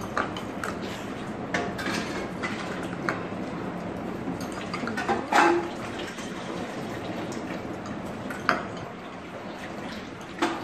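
Spoon and fork clinking and scraping against ceramic bowls as Maggi noodles are eaten quickly, a few sharp clinks, the loudest about halfway through, over steady room noise.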